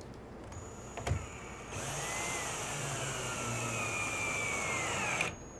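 Cordless drill driving a wood screw into a clamped wooden joint. A click sounds about a second in, then the drill motor runs for about three and a half seconds with its pitch slowly falling, and stops abruptly near the end.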